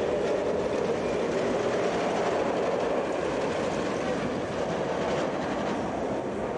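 Inverted steel roller coaster train running along its track: a steady rumble of wheels on rails.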